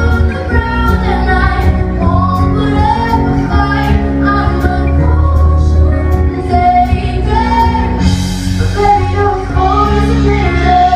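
A woman singing a pop song live with a full band: heavy bass, regular drum hits and a cymbal crash about eight seconds in, filling a large hall.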